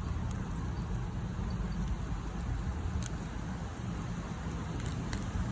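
Outdoor background noise: a steady, fluttering low rumble with a faint hiss above it, and two faint clicks, one about three seconds in and one near the end.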